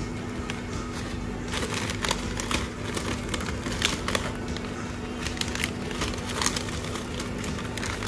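Background music with frequent short crinkling and clicking sounds over it.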